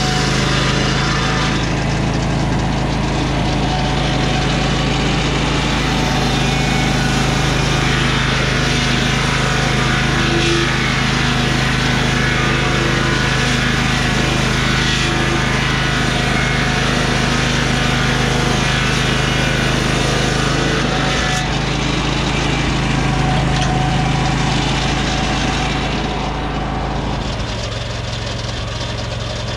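Lucas Mill 618 swing-blade sawmill's 18 hp Vanguard V-twin engine running under load as its circular blade rips a board from a lodgepole pine log, with a dense hiss of cutting. Near the end the engine note changes and the level drops as the load comes off the blade.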